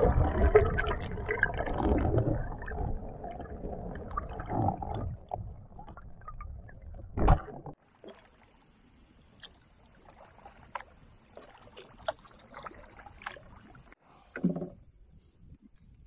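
Water rushing and gurgling around a camera dipped underwater beside a moving canoe, fading over about five seconds, then a sharp knock. After that it is near quiet on calm water, with faint scattered clicks and a short low knock near the end.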